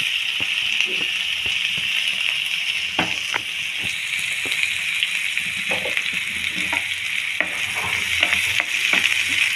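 Finely chopped onion sizzling in hot oil in a frying pan, just tipped in: a steady hiss with scattered small crackles and pops.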